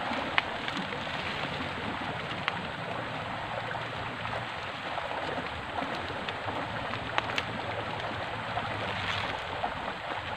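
Steady rushing of a swollen, muddy river flowing past the bank, with a few faint light clicks.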